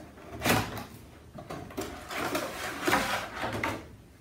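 Cardboard packaging being opened and its contents handled: a short scrape about half a second in, then a longer stretch of rustling and scraping.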